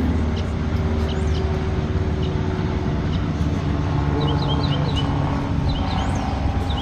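Wind buffeting the microphone in a steady low rumble, with a bird chirping in quick short series about four seconds in and again near the end.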